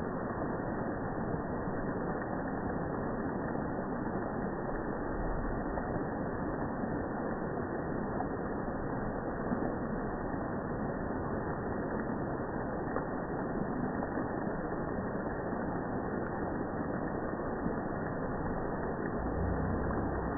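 Steady rain and dripping water, slowed down along with the slow-motion footage, so it comes out as a dull, even hiss with no high end.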